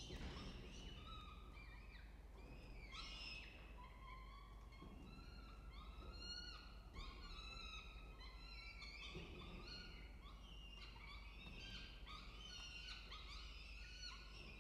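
Peregrine falcon chicks begging as they are fed, a constant faint chorus of short, high, chirping calls, many overlapping.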